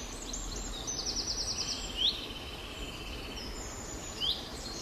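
Birds chirping outside: a quick run of short high chirps in the first second and a half, then single rising whistled calls about two seconds in and again near the end, over a steady low background hiss.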